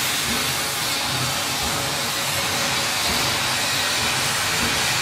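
Steam locomotive hissing steam steadily in the cab, heard from beside the controls, over a low, uneven undertone.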